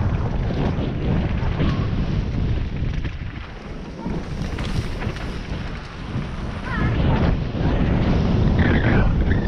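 Mountain bike descending a dirt forest trail, heard through a helmet camera's microphone: wind buffeting the microphone and the tyres and frame rumbling and rattling over the ground. It eases a little in the middle and picks up again, with a few brief high squeaks near the end.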